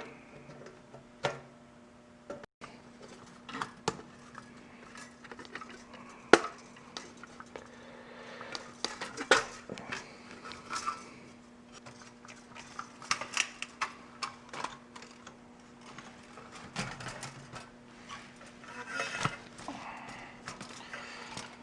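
Irregular clicks, taps and light metallic clinks of a toaster's sheet-metal panels and parts being handled and worked loose from its base, with a faint steady hum underneath.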